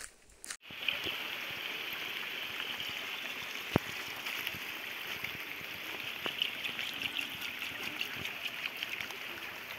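Water pouring steadily from a small spring pipe onto wet rocks, a trickling splash that starts abruptly about half a second in. A single sharp click sounds about four seconds in.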